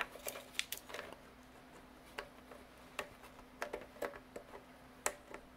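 An IDE ribbon cable being handled and folded over a hard drive, with scattered light clicks and rustles of the cable and its plastic connector.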